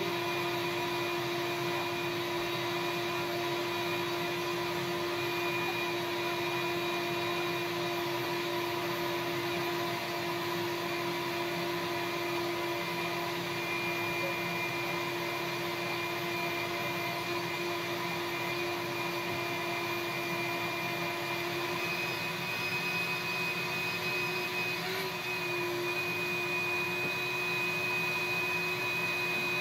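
Shop vacuum running steadily with a constant whine, its hose sucking dust and debris off a bare shower-pan floor.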